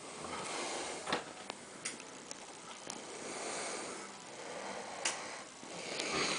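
A sleeping man breathing noisily through his nose, the breath sound slowly swelling and fading, which the uploader puts down to a deviated septum after drinking cachaça. A few sharp clicks are scattered through it.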